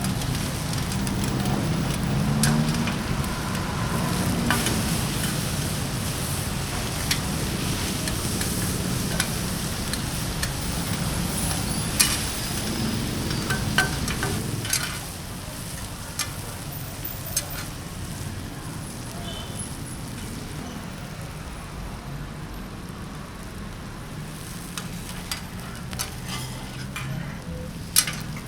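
Stir-frying in a wok: food sizzling in hot oil, with scattered sharp clicks and knocks of the spatula against the pan. The sizzle drops in level about halfway through.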